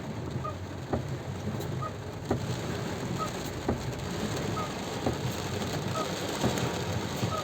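Heavy rain pouring steadily in a storm, with a faint regular click about every two-thirds of a second.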